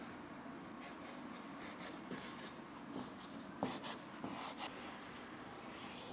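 Large kitchen knife cutting through stacked sheets of rolled noodle dough on a wooden board: a run of short scraping cuts and light taps on the board, the sharpest about three and a half seconds in.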